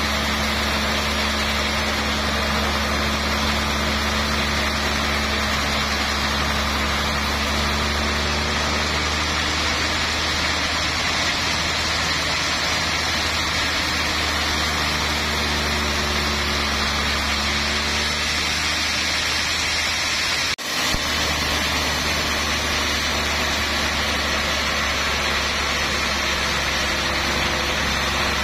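Large band sawmill running steadily, its blade cutting through a trembesi (rain tree) log, with a constant low hum under the noise of the cut.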